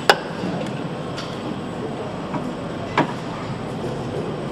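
A white-faced mallet knocking on an aluminium motorcycle engine crankcase: two sharp knocks about three seconds apart, over steady assembly-hall background noise.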